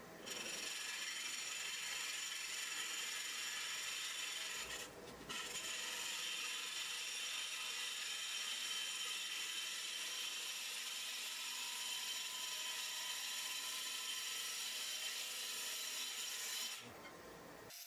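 Gouge cutting into a monkey pod bowl blank spinning on a wood lathe at about 900 rpm, a steady rasping as shavings peel off the underside of the bowl. The cut pauses briefly about five seconds in and stops shortly before the end, leaving the lathe's quieter hum.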